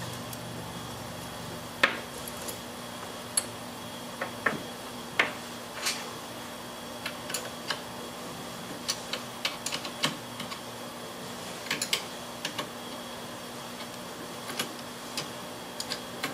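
A wrench and the steel fittings of a pipe-tee stopper tool clinking as the tool's collar bolts are worked by hand. The sound is a string of irregular, sharp metallic clicks and taps, the loudest about two seconds in.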